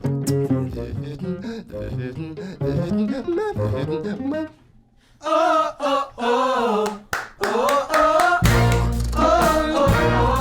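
Beatboxing with an acoustic ensemble: rhythmic mouth percussion over plucked strings. After a brief break about halfway, a sliding melody line comes in. A deep bass joins near the end.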